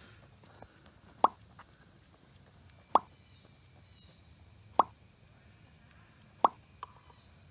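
Steady high-pitched drone of insects such as crickets, with four short hollow pops spaced about every second and a half to two seconds.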